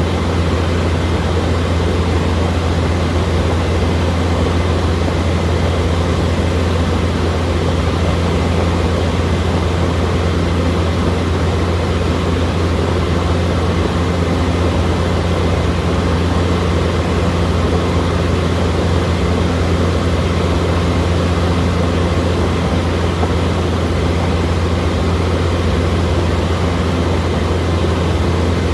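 Steady drone of a light propeller airplane's engine and propeller heard inside the cockpit in cruise: a deep, even hum that holds the same pitch throughout.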